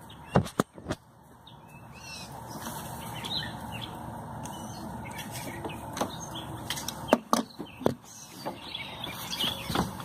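Birds chirping in the background, with several sharp knocks and clicks from handling close to the microphone: a few just after the start and more around seven seconds in.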